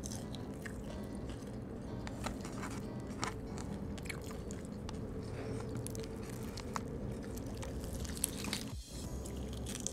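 Close-up chewing and biting of crispy spicy fried chicken, with irregular crunches of the dry, crisp skin.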